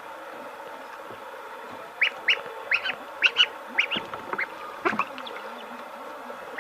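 Young ducklings and chicks peeping: a short lull, then a rapid flurry of high, short peeps about two seconds in that thins out toward the end.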